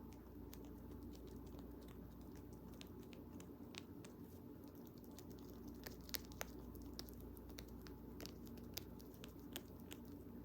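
Pet rabbit gnawing and crunching on a bamboo chew: a quick run of small sharp crunches and clicks, a few louder snaps about six seconds in, over a faint steady hum.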